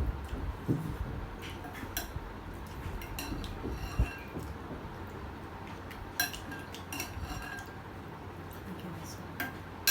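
Cutlery and dishes clinking during a meal: scattered light clinks and taps a second or two apart, with no steady rhythm.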